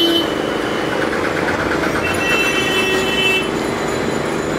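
Steady busy-street traffic noise, with a high-pitched tone sounding for about a second just past the middle.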